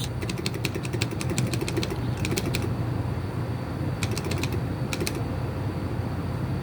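Rapid runs of light clicks in several short bursts: a dense run in the first second and a half, then shorter runs a little after two seconds, at four seconds and at five seconds. A steady low hum runs underneath.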